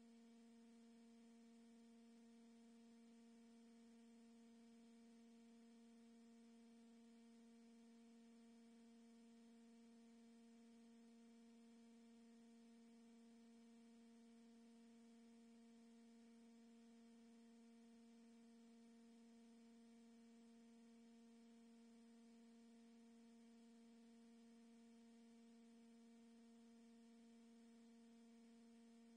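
Near silence with only a faint, steady hum that holds one pitch throughout.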